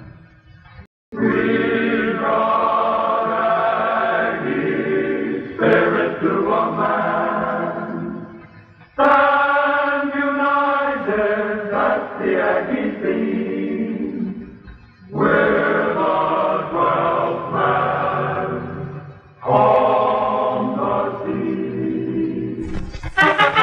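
Many voices singing together in long phrases with short breaks between them; near the end brass instruments come in.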